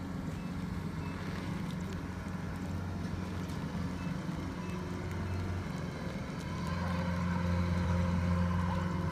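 Engine of a rice harvesting machine running steadily with a low, even drone that grows louder about two-thirds of the way in.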